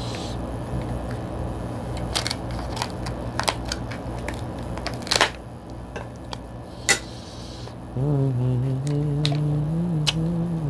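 King crab shell being snipped with kitchen scissors and cracked apart by hand: a run of sharp, separate cracks and clicks. About eight seconds in, a man's low hum comes in, wavering in pitch.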